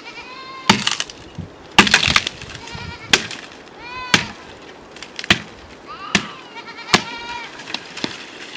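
A curved hand blade hacking at a tree branch: sharp chopping strikes at irregular intervals, roughly a second apart. Goats bleat several times between the strikes.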